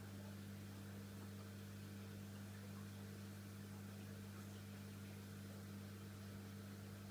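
Faint steady electrical hum, low and unchanging, with a soft hiss over it.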